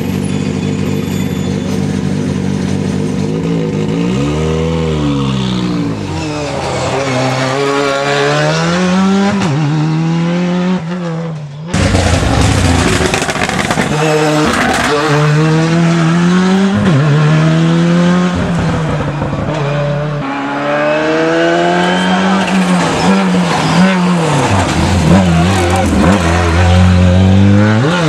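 Ford Escort RS Cosworth rally car's turbocharged four-cylinder engine idling steadily, then revved up and down several times. After a cut, the car is driven hard through a bend and away, the engine louder, its pitch climbing and dropping repeatedly with the gear changes.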